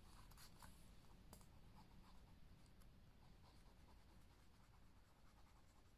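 Near silence, with faint light taps and scratchy rustles of paper pieces being handled and pressed into place.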